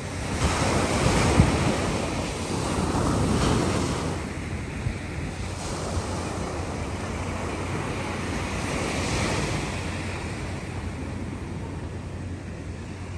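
Small waves breaking and washing up a sandy beach in repeated surges, with wind rumbling on the microphone.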